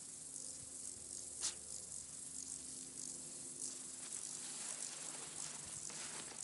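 A small dog's paws rustling and stepping through dry grass, with a steady high hiss behind it; the sharpest rustle comes about a second and a half in.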